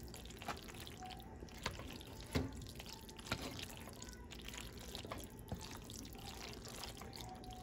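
Wet squishing and sloshing of cooked elbow macaroni being stirred and pressed down into cheese sauce in a pot with a spoon, with a few light knocks scattered through.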